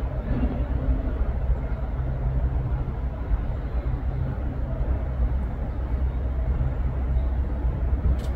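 Steady low rumble of background noise with a constant low hum, and one short click near the end.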